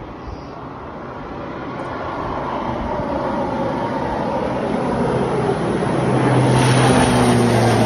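Small private aircraft coming in to land. Its engine noise grows steadily louder, with a steady low hum and a high whine.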